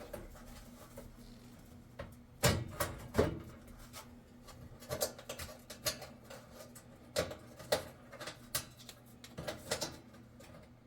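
Sheet-metal oven burner cover being handled and lined up in its slots: scattered light clanks and clicks of metal on metal, with two louder knocks about two and a half and three seconds in.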